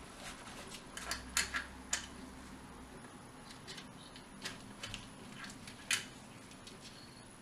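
Irregular light metallic clicks and clinks of a shotgun sling swivel and its hardware being fitted by hand, with a cluster of sharper clicks about a second in and another near six seconds in.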